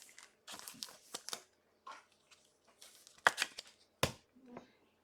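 Trading cards being handled: soft rustling and sliding, with two sharper clicks about three and four seconds in.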